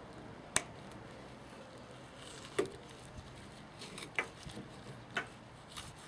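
Leatherman Blast multi-tool blade scoring coconut flesh inside the shell: a handful of short, sharp clicks and scrapes at irregular intervals.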